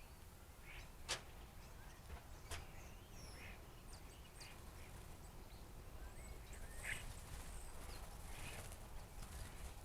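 Flock of blackbirds calling: faint, scattered short chirps and calls, with two sharp clicks about one and two and a half seconds in over a low steady rumble.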